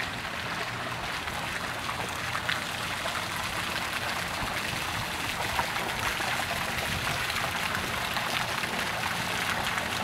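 Row of arcing fountain jets splashing steadily into a swimming pool.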